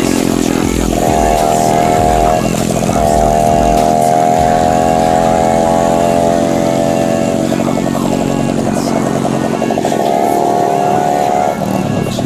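Off-road motorcycle engine revving hard and held at high revs, easing off briefly and picking up again several times as the bike climbs a slippery trail.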